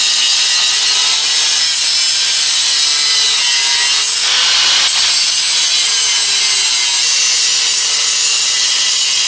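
Angle grinder with a cut-off wheel cutting through steel bed-frame angle iron, running steadily under load. Its whine sags slightly now and then as the wheel bites into the metal.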